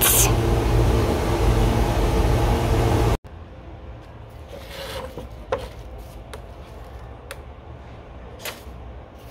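A handheld power tool runs with a steady, noisy whir and low hum for about three seconds, then cuts off abruptly. After that come a few scattered light knocks of wooden chair parts being handled.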